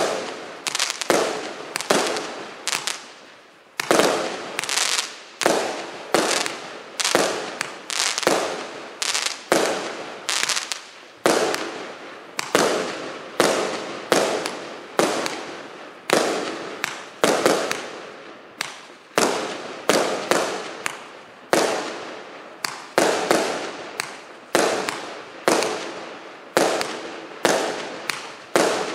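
A 120-shot, 0.8-inch fireworks cake firing in rapid succession, about two shots a second, each a sharp bang that dies away quickly.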